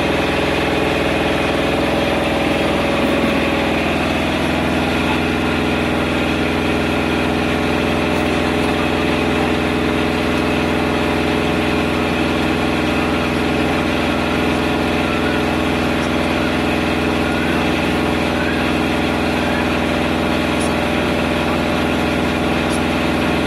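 Portable generator engine running at a steady speed, an unchanging engine hum.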